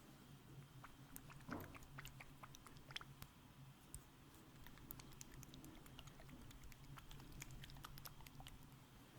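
Faint close-up ASMR trigger sounds: many small, crisp clicks and crackles, irregular and getting denser in the second half.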